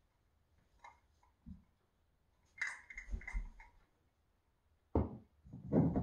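Handling noises as decor items are set down and moved about on a wooden TV stand: scattered light knocks and rustles, a small clatter about midway, and two heavier thumps near the end.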